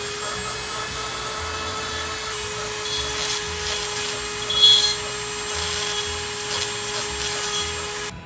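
Small electric rotary carving tool running steadily, its bit grinding and rubbing against a small carved wooden bird to put detail on the backs of its wings. There is a brief louder scrape about halfway through, and the motor stops abruptly near the end.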